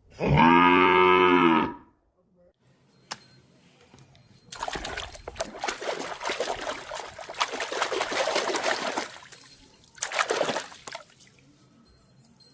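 A cow mooing once, loud and about a second and a half long. A few seconds later water runs and splashes for about four seconds, with a shorter splash near the end.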